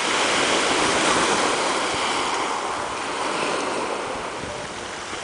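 Sea waves washing on a shore: a steady rush of noise that swells about a second in and eases off toward the end.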